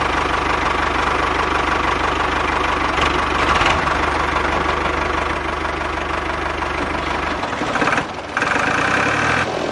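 Mini model tractor's engine sound running steadily with a fast, even knock. The sound changes about seven and a half seconds in and dips briefly a moment later.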